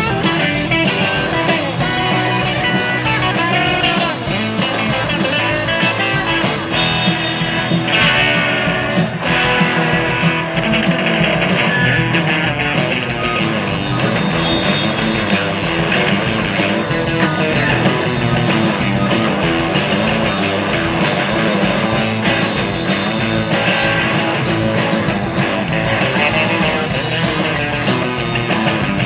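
Rock band playing live: several electric guitars over a drum kit, loud and steady throughout.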